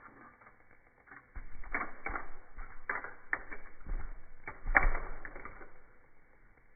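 A plastic twisty fidget toy being turned by hand, its segments clicking and rattling in quick runs for about four seconds, with the loudest snap near the end.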